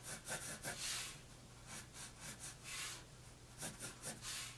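Regular graphite pencil scratching across paper in a run of short quick strokes, drawing small crossed lines.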